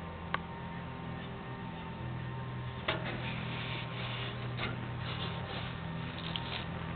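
Steady low hum with a few faint short clicks: once just after the start, once about three seconds in, and once more a little later.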